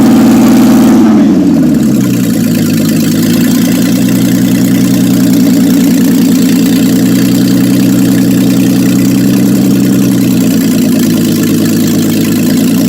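Mercedes-Benz six-cylinder engine held at raised revs, which fall away about a second in; it then idles steadily.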